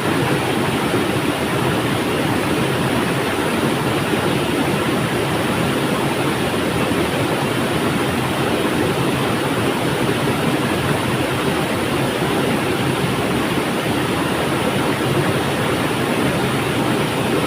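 River water flowing, a steady, even rush without breaks.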